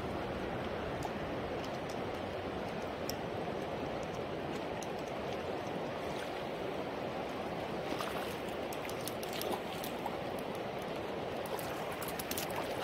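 Steady rush of river current, with a scatter of short sharp ticks and small splashes in the second half as a hooked trout thrashes at the surface.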